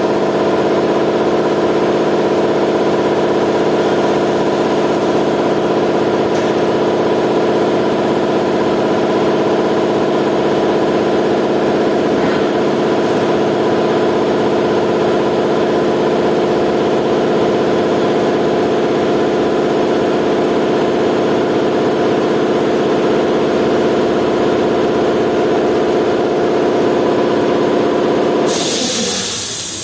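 A machine's motor or engine running steadily, a constant hum of several tones. About a second and a half before the end a hiss comes in and the hum begins to fade.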